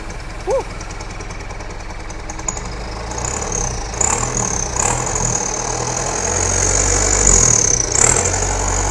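Mitsubishi Canter truck's turbocharged diesel engine running through its new short open exhaust just after starting, idling and then given light throttle blips about four and five seconds in and again near eight seconds, getting louder toward the end. The exhaust note is crisp and dry ('garing').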